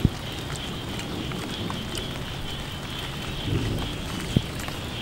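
Steady rain hiss over a low rumble, with an insect-like trill running through it and two sharp clicks, one at the very start and one a little past four seconds in.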